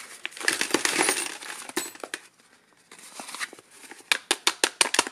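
A small brown paper packet crinkling as it is handled. Near the end comes a quick run of sharp clicks as small metal screws clink together.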